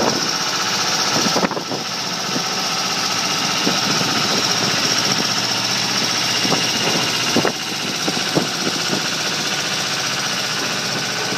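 Heavy diesel engine running steadily, with scattered short knocks and clanks over it. The level drops abruptly twice, about a second and a half in and about seven and a half seconds in.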